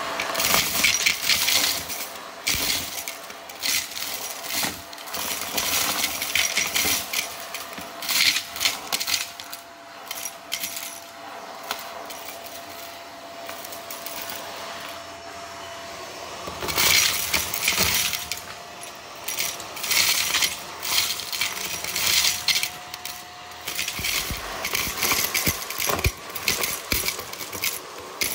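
Irregular clinking and clattering of small hard objects, in clusters of rapid clicks with short lulls between.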